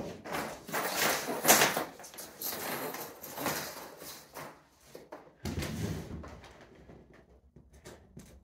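Scraping and rubbing handling noises as an insulation board is measured and marked on a table, loudest in the first couple of seconds, with a low rumble about halfway through before it goes quieter.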